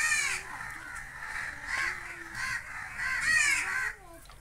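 Crows cawing over and over, one short call after another.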